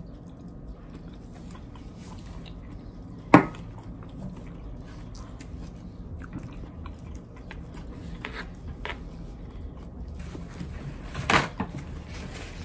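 Eating at a table: utensils tapping on plates, with a sharp clink about three seconds in and another near the end, a few fainter taps between, over a low steady hum.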